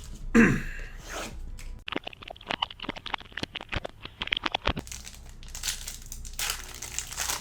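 A trading-card pack wrapper being torn open and crinkled: a sharp tear just after the start, a run of quick crackles in the middle, and a longer crinkling rustle near the end.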